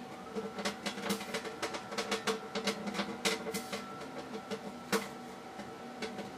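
Plasma Jacob's ladder (Information Unlimited JACK50) running: its plasma arc crackles in a rapid, irregular string of sharp clicks over a steady hum. This is the quieter, softer output of a plasma ladder, not the loud buzzing of an ordinary spark ladder.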